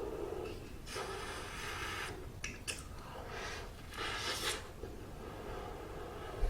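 Close-up mouth sounds of eating a steamed bun: a few breathy puffs of air and small wet clicks of the mouth between bites.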